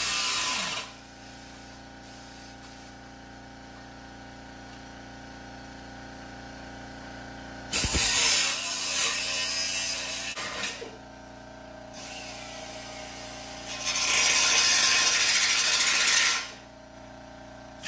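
Grinder with a cutoff wheel cutting diamond plate in three loud bursts: one ending under a second in, one from about 8 to 10 seconds in, and one from about 14 to 16 seconds in. Between the cuts there is a quieter steady hum.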